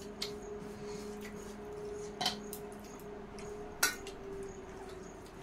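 Eating by hand from stainless steel plates: fingers working rice against the steel, with three sharp clinks of the plates, the loudest about two-thirds of the way in, over a steady low hum.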